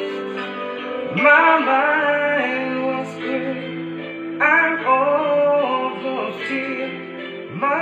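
Slow rock song: a male singer sings two phrases, one starting about a second in and another just past the middle, over held instrumental backing.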